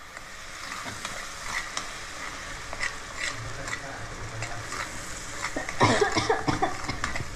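Metal spoon stirring and scraping a green coriander, ginger and garlic paste frying in masala in a nonstick pan: a steady sizzle with many short scrapes and taps, louder near the end.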